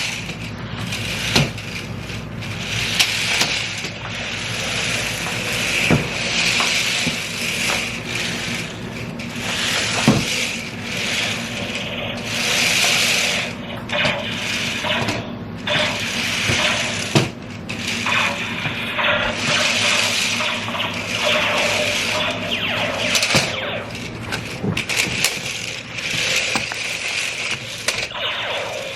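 Small electric motors and plastic gearboxes of RC laser-tag toy tanks whirring as they drive around, the whir swelling and fading every few seconds, with scattered clicks and knocks.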